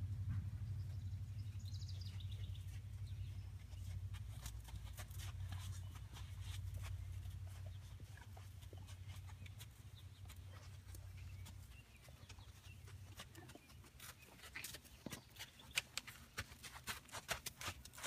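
Horse walking on a sand arena: soft hoof steps and small clicks, growing louder and sharper near the end. A bird chirps briefly about two seconds in, over a steady low hum that fades away about two-thirds of the way through.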